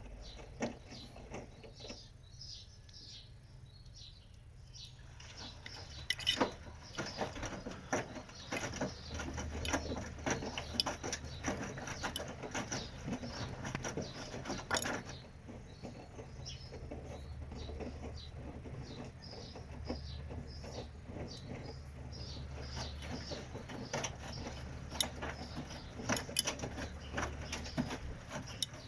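Washing machine running a wash. A low motor hum comes in after about eight seconds, drops out briefly around the middle and starts again. Irregular clicks and patter come from the load tumbling in the drum.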